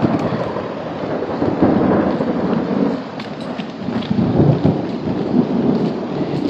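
Heavy rain with thunder rumbling, the low rumble swelling twice, with scattered small ticks of drops.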